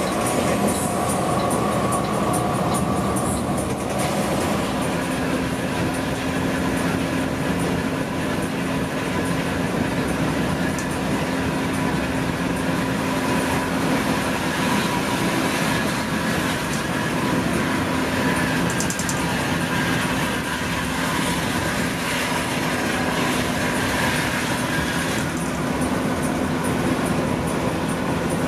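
Cabin noise of a Mercedes-Benz OH 1626 coach at highway cruising speed: a steady drone of the engine mixed with tyre and road noise. A low hum shifts in pitch about four seconds in.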